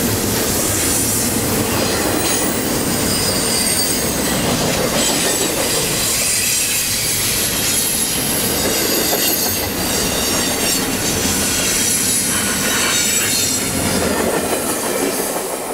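Double-stack container freight train rolling past at close range: steady clatter and rumble of the well cars' wheels, with high metallic wheel squeal from the curved track. The sound starts to fall away near the end as the last car goes by.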